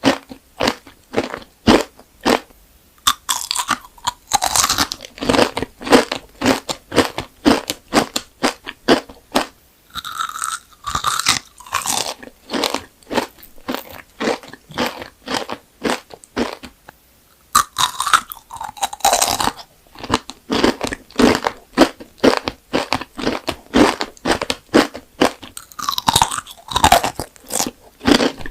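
Close-miked crunching and chewing of hard, gem-shaped candy: rapid crisp crunches several times a second, with a pause of a few seconds about midway.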